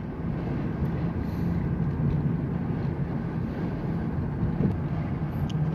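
A motor vehicle's engine running with a steady low hum and road noise.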